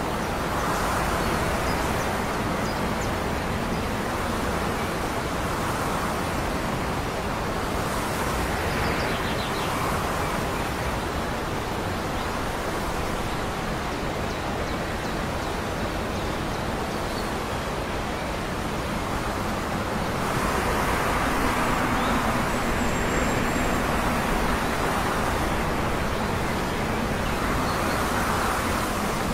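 Steady wash of wind and distant town traffic noise, with soft swells and no distinct sound standing out.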